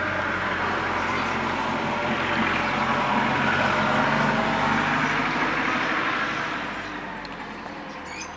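A motor vehicle's engine running, growing louder to a peak about halfway through and then fading away, as a vehicle passing by.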